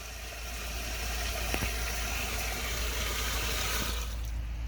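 Hydro jetter's engine running steadily under a rushing hiss of high-pressure water in the discharge line, the hiss stopping suddenly about four seconds in.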